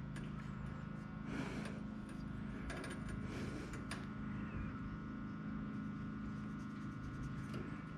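Faint clicks and scrapes of hands handling small parts, scattered through the first half, over a steady background hum with several fixed pitches.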